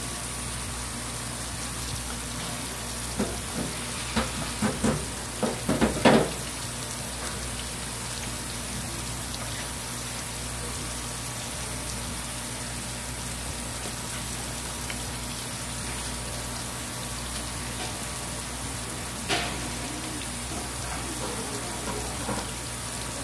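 Steady rush of running water, with a quick run of about eight sharp knocks about three to six seconds in, the last the loudest, and one more knock near the twenty-second mark: a knife striking a cutting board as raw fish is cut.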